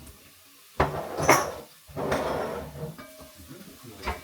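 Kitchen handling noises. A sharp knock and scrape come about a second in, like a cupboard or drawer being opened or shut, then a rustle, and a click near the end.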